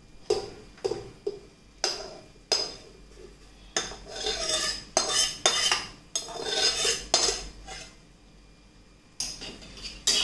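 Metal spoon scraping and knocking against a metal kadai and the rim of an aluminium pressure cooker as thick cooked masala is scraped from one into the other: irregular clinks and scrapes, with a brief lull near the end before a few more.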